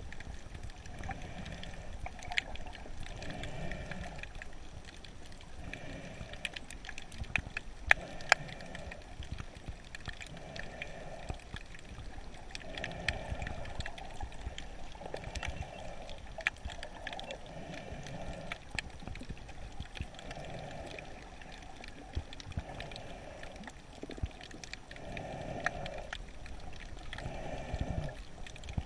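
Underwater sound heard through a submerged camera: muffled water movement that swells every second or two, with scattered sharp clicks.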